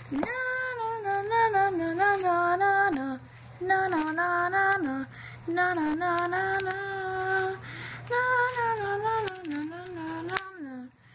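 A voice singing a slow, wordless tune in four long phrases, several ending with a downward glide.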